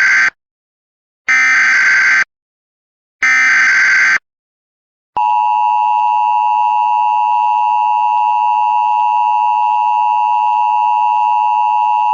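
Emergency Alert System SAME header: the end of one digital data burst, then two more identical one-second bursts about a second apart. About five seconds in, the steady two-tone EAS attention signal starts and holds.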